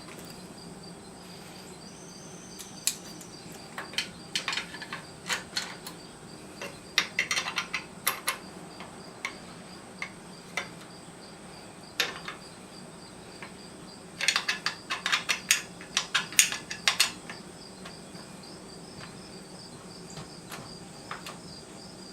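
Hex wrench and pliers clinking against metal bolts and nuts, in irregular bursts of sharp clicks, while the nuts holding a saw-stand handle are tightened down.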